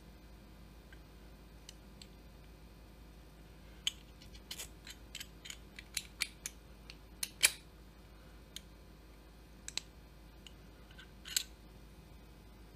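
An irregular run of sharp clicks and light snaps from small parts and hand tools being handled. They come thick from about four seconds in, with one louder snap a little past the middle, and a few scattered ones follow near the end.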